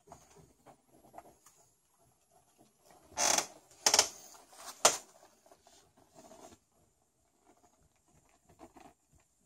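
Kittens play-fighting on a wooden floor: light pattering and scratching of paws and claws, with three louder short scrapes about three to five seconds in.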